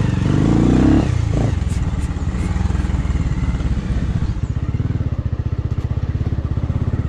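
Motorcycle engine heard from the rider's seat, louder for about the first second, then running steadily at low speed over a rough stony trail. A few faint clicks come in about two seconds in.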